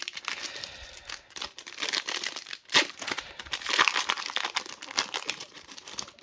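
Baseball card pack wrappers being torn open and crinkled by hand: a continuous run of crackling and tearing.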